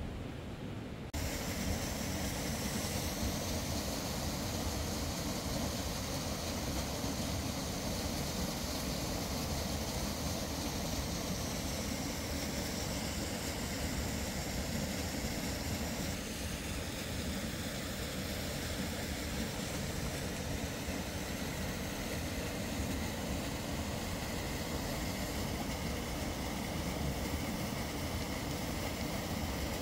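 A vehicle running steadily, with a constant rumbling noise that starts abruptly about a second in.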